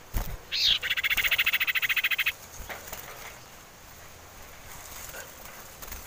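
Common iora giving a short sweeping call and then a fast, dry trill of about a dozen notes a second, lasting about a second and a half. A couple of soft knocks come just before it.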